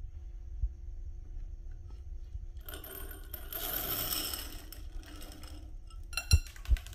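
Marbles clattering and clinking: a dense rattle about three seconds in that lasts a second and a half, then a few sharp clicks and two loud knocks near the end, over a low steady hum.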